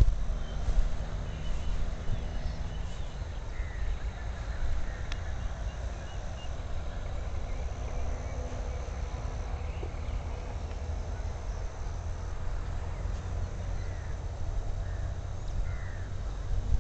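Outdoor ambience: wind rumbling on the microphone, with a few faint, short bird chirps in the background.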